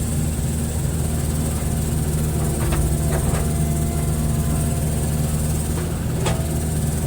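Hitachi hydraulic excavator's diesel engine running steadily, with a few short sharp knocks a little before the middle and once more near the end.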